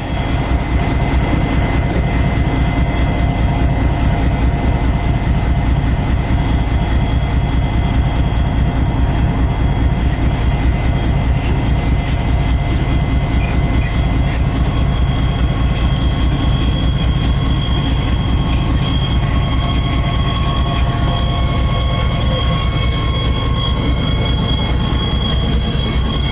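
Locomotive electric traction motors running under a moving train: several steady whining tones over a continuous low rumble, with a scatter of sharp clicks in the middle.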